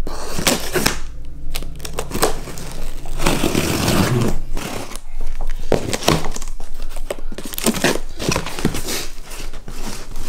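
Cardboard shipping box being opened and unpacked by hand: packing tape and packing material tearing, crinkling and rustling, with many sharp clicks and knocks.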